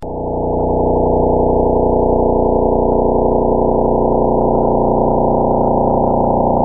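Steady synthetic drone of many layered, held tones, presented as the sound of a planet, swelling in over the first second and then holding level.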